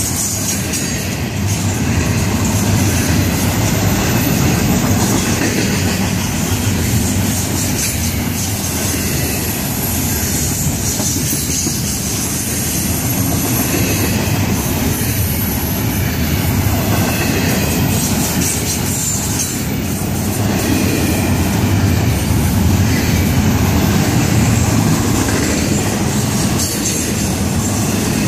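Freight train of double-stack container well cars rolling past at close range: a steady rumble of steel wheels on rail with clicking over the rail joints, and a faint wheel squeal about midway.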